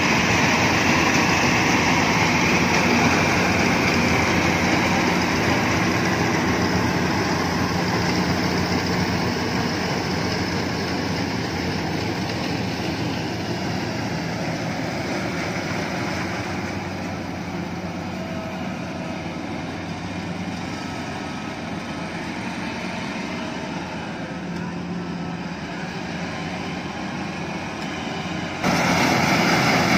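Iseki HC80 rice combine harvester running steadily, its engine noise slowly fading over the middle as the machine moves off, then abruptly louder again near the end.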